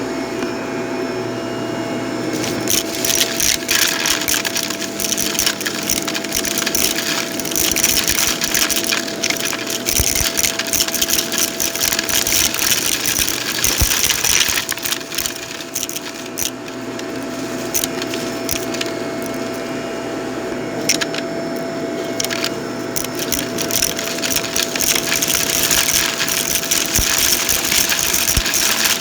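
Vacuum cleaner running with a steady whine, crackling and rattling throughout as it sucks up crunchy debris.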